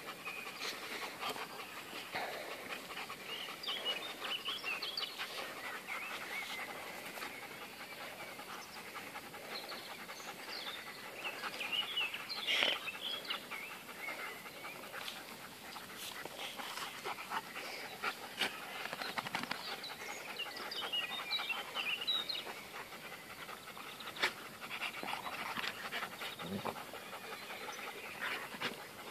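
Two Beauceron dogs panting as they wrestle and play-fight, with scuffling throughout.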